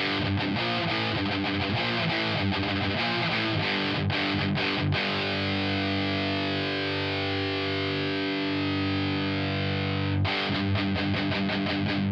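Distorted electric guitar played through the Audiority L12X, a free solid-state amp-head plugin modelled on a Marshall JCM, with the plugin's own cabinet simulation on. Quick picked notes at first, then a chord left to ring for several seconds, then more picking near the end.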